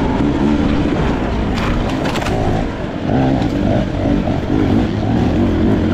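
Beta 300RR two-stroke dirt bike engine being ridden, its pitch rising and falling as the throttle is worked on and off. A few sharp clicks come about two seconds in.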